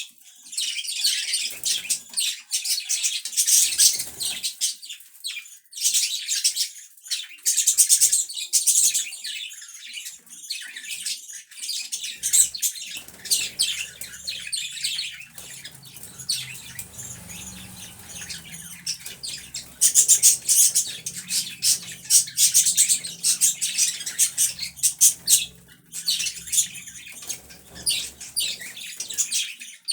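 Pet budgies chirping and chattering in quick, high-pitched bursts with short pauses between them.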